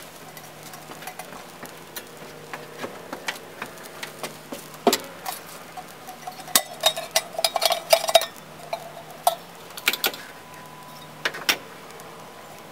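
Small biomass fire in a sawdust TLUD stove crackling and popping: irregular sharp cracks that come thickest in the middle. A wavering buzz is heard during the busiest stretch.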